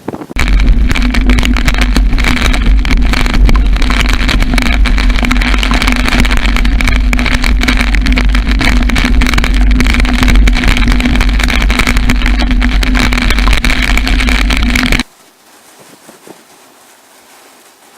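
Damaging thunderstorm winds blasting the microphone: a loud, rumbling roar with a steady hum running through it, which cuts off suddenly about fifteen seconds in, leaving a faint hiss.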